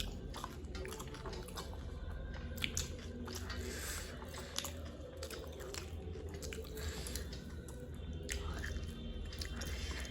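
People chewing and crunching a snack meal of puffed rice (muri) and fried snacks close to the microphone, with irregular crisp crunches, over a steady low hum.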